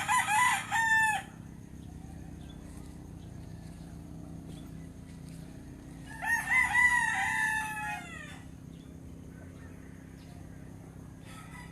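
Rooster crowing: a loud crow at the start, a longer one about six seconds in, and a fainter crow near the end.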